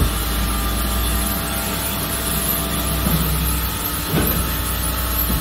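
Steady hum of running industrial machinery, with several steady tones over a deep rumble. There are two brief knocks, about three and four seconds in.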